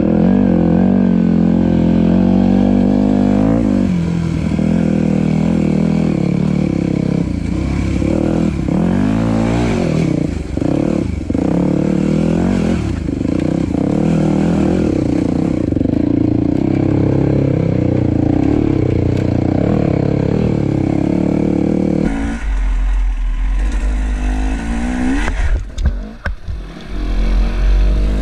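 Dirt bike engine running on a trail ride, its revs rising and falling with the throttle. About 22 seconds in the engine note stops abruptly, leaving a low rumble with a few knocks and clatter.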